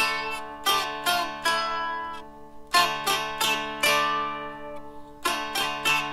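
Solo fretted dulcimer strummed in a slow melody, its drone strings ringing steadily under the tune. Clusters of strokes are separated by short lulls about two seconds in and again near the five-second mark.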